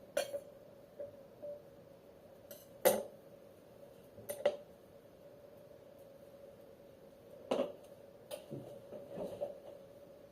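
Dishes and utensils being handled: a few sharp, separate clinks and knocks spread out, the loudest about three seconds in, with a short run of softer handling sounds near the end, over a faint steady hum.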